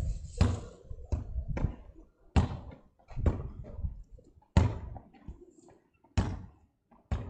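A football being kicked and bouncing: a series of sharp, irregularly spaced thuds, roughly one a second.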